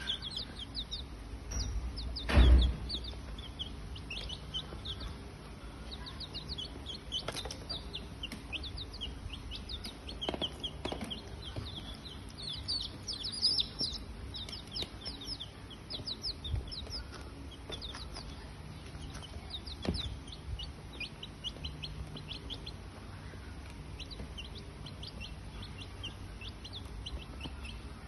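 Birds chirping: many short, high chirps repeating throughout, with one loud thump about two and a half seconds in.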